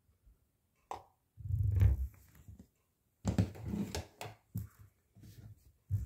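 Scattered plastic clicks and a few dull thumps from a small portable washing machine with its drum at rest, as the lid is opened and a hand reaches in among the wet laundry for a plastic cup and detergent cap.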